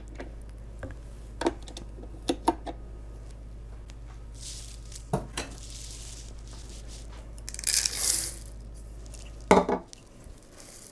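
A spatula scraping and tapping on a stand mixer's metal paddle and steel bowl: scattered light clicks and knocks, two brief rustling hisses, and a louder knock near the end.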